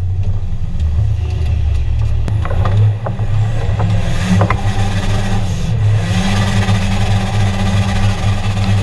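Off-road 4x4's engine running steadily under load at crawling speed, with brush and branches scraping and knocking against the body; a few sharp knocks come in the middle and the scraping grows from about six seconds in.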